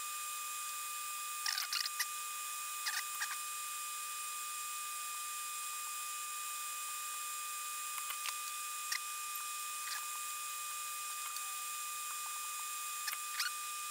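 Steady hiss with a faint thin whine from a small fan drawing away solder smoke, under a few light clicks and taps of hands working wires and components on the amplifier's eyelet board.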